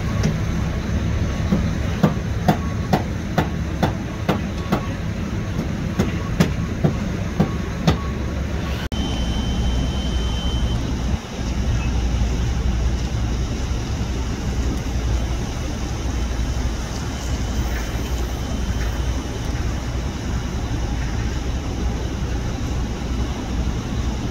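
A steady, low engine rumble from heavy machinery, with a run of about a dozen sharp knocks over the first eight seconds.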